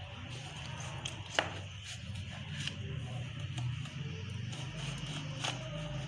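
Kitchen knife cutting through a whole orange on a board, with a few sharp knocks of the blade, over a steady low hum.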